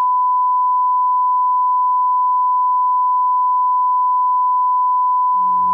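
A single steady electronic beep tone at one high pitch, held unchanged for several seconds and then cutting off suddenly; guitar music starts quietly under it near the end.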